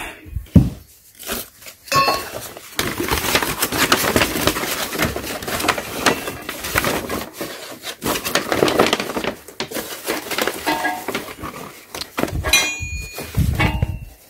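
Brown packing paper crumpling and rustling as it is pulled off, with painted steel tire-changer parts clinking against each other: one metal clink about two seconds in and a few ringing clinks near the end.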